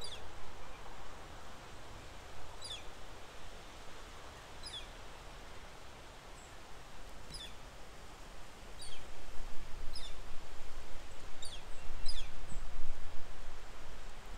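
Outdoor wind with a small bird giving about eight thin, very high chirps, spaced a second or two apart, each sliding quickly downward in pitch. Gusts of wind rumble louder from a bit past halfway.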